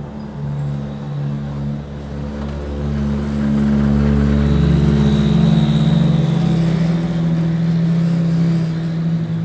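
Ferrari P80/C's twin-turbo V8 running at low revs as the car drives slowly past, a steady low drone that grows louder about three and a half seconds in.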